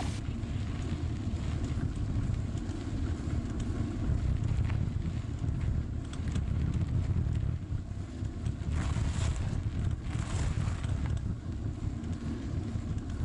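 Steady low rumble of wind buffeting a bike-mounted camera's microphone, mixed with bicycle tyres rolling over a dirt and gravel path, with a few brief lighter rattles.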